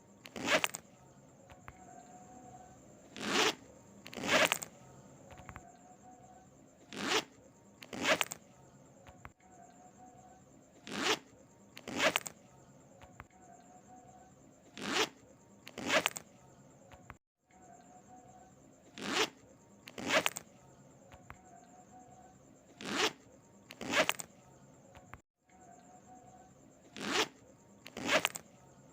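A zipper being zipped, in quick rasping strokes that come in pairs about a second apart, each pair repeating roughly every four seconds.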